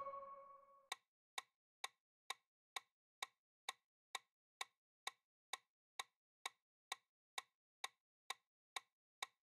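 Clock-style ticking sound effect of a quiz countdown timer, about two even ticks a second. The tail of a bell-like chime fades out in the first second.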